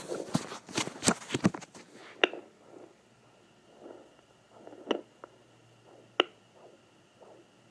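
Home fetal Doppler speaker: loud scratchy crackling as the probe is moved over gel on the skin, then a quieter hiss with faint whooshing pulses repeating about every half second and three sharp clicks.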